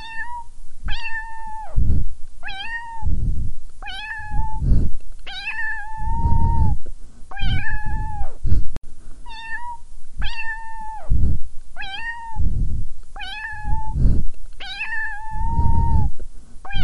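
Tabby stray cat meowing over and over, about a dozen separate meows roughly every second and a half, each swelling up, held at one pitch, then dropping off at the end.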